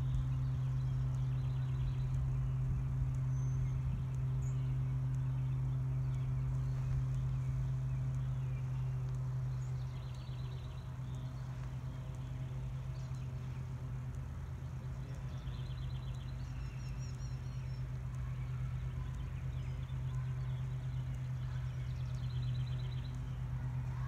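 A steady low engine hum runs without a break. Several short, high bird trills come and go over it.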